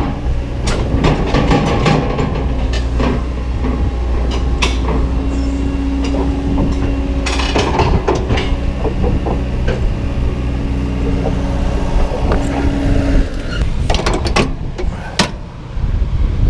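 Truck engine running steadily, with frequent rattles and clicks and a steady hum through the middle of the stretch.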